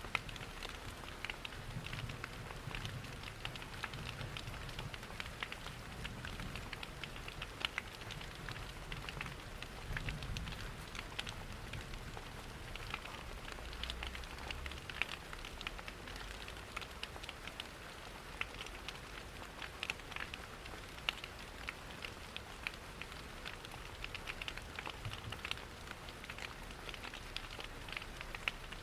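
Steady rain mixed with a crackling wood fire: an even hiss of rain with many small sharp ticks and pops, and a few soft low rumbles.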